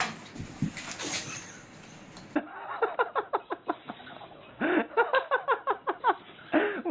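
A person laughing in quick repeated bursts, starting about two and a half seconds in and growing louder in the second half; only a few faint sounds before that.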